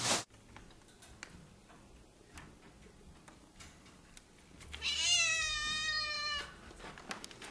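A domestic cat meowing once, one long meow that falls slightly in pitch, about five seconds in, with faint small clicks before it.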